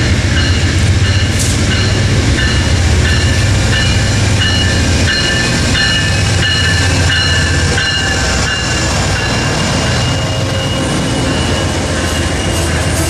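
Amtrak P42DC diesel locomotive approaching and passing close by, its engine giving a heavy low drone and a bell ringing in quick repeated strokes. About halfway through, the passenger cars rolling past take over with a steady rumble and clatter of wheels on the rails.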